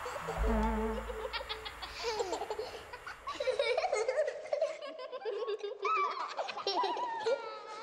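High, babyish giggling and laughing from several voices, a run of quick warbling giggles starting about a second and a half in, after a short low musical note.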